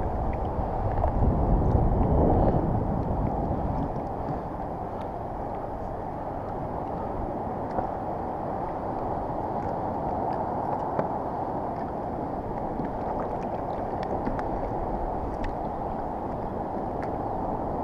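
Wind buffeting the microphone and water sloshing against a kayak's hull: a steady rush, with a stronger low gust in the first few seconds and a few faint ticks.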